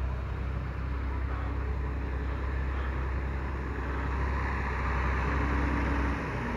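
Engine of a large John Deere tractor with dual wheels running steadily as it drives in across the grass, growing a little louder as it comes closer.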